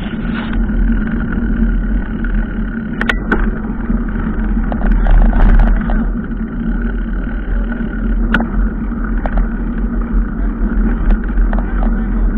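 Steady low rumble of a vehicle in motion, with a few sharp clicks or rattles, the loudest about a third of the way in and again past the middle.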